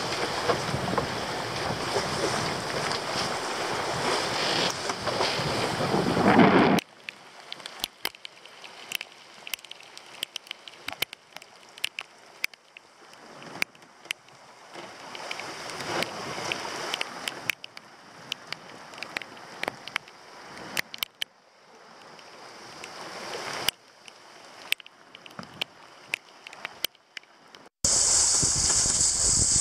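Wind buffeting the microphone and water rushing along the hulls of a Wharram Tiki 26 catamaran under sail. About seven seconds in, the sound cuts abruptly to a much quieter stretch of swishing water with scattered sharp ticks. Near the end the loud wind noise returns just as suddenly.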